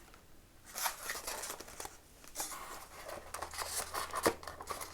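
Handling noises: irregular rustling with small clicks and short scrapes as the foam model plane and its parts are handled and examined.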